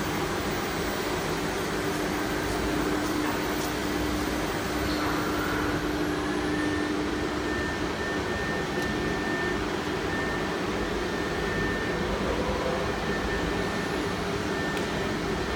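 CNC router running: a steady machine noise with a constant spindle whine, and a higher tone that rises about five seconds in and then holds.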